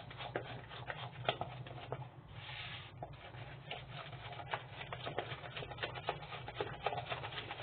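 A spatula stirring a thick cake batter by hand in a plastic bowl: irregular soft clicks and taps of the spatula against the bowl, with a brief scraping hiss a little over two seconds in, over a low steady hum.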